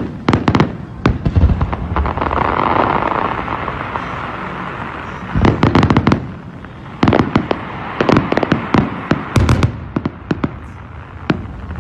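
Aerial fireworks bursting in rapid volleys of sharp bangs and cracks, in three clusters with a steady hiss between the first two.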